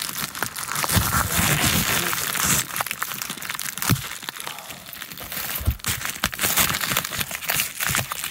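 Clear plastic wrapping crinkling and rustling as a shipping package is handled and opened, with a few sharp knocks, the loudest about four seconds in.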